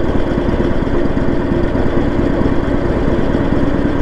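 Harley-Davidson Sportster 1200's V-twin engine running steadily at low throttle, a fast, even run of exhaust pulses, as the motorcycle rolls slowly down a hill.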